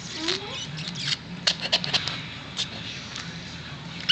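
A cluster of sharp clicks and rustles about halfway through, with a short rising squeak near the start, and a newborn miniature dachshund puppy squeaking sharply, high-pitched, right at the end.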